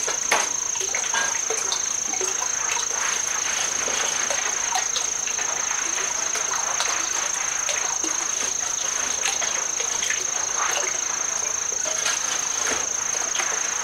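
Lathered body towel scrubbing skin, a run of short irregular rubbing strokes over a steady high-pitched whine.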